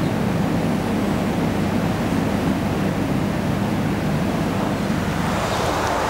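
Electric fans running: a steady, even rushing noise with a low hum underneath.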